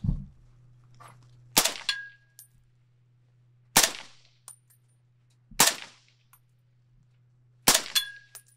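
Four suppressed rifle shots about two seconds apart from an FN SCAR fitted with a prototype .30-cal suppressor, each a sharp report with a short tail. A brief metallic ring follows the first and last shots: a steel target being hit.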